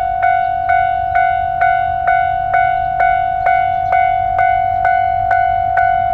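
Japanese railway level-crossing warning bell ringing in a steady rhythm, about two strikes a second, each ring carrying on into the next. A low steady rumble runs underneath.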